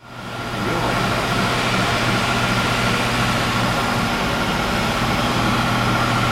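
Large Poreba PNA-80 CNC lathe running under power: a steady mechanical hum with a constant low drone and a steady high tone, coming in at the start and settling to an even level within about a second.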